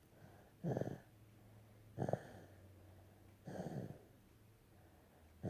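Snoring in sleep: short, rhythmic snores about every second and a half, three of them, with a fourth starting at the very end.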